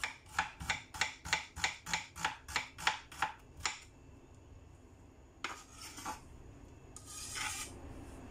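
Kitchen knife slicing shallots on a cutting board: about a dozen quick, even cuts, roughly three a second. After a pause come two longer scrapes of the blade across the board as the slices are pushed together.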